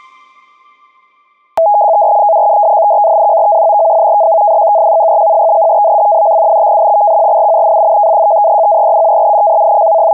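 Electronic music fades out, and about a second and a half in a loud, steady two-pitch electronic tone like a telephone dial tone starts abruptly and holds unchanged.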